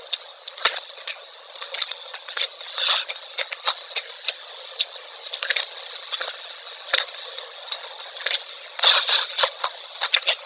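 Close-miked chewing of fresh sea grapes: wet crackling pops and squishes at an uneven pace, with a denser cluster about nine seconds in.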